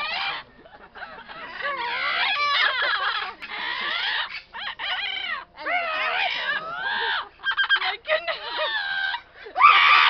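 Amazon parrots calling and chattering: a string of squawks and speech-like warbling calls that swoop up and down in pitch, in short bouts with brief gaps between them, some broken into quick stuttering notes.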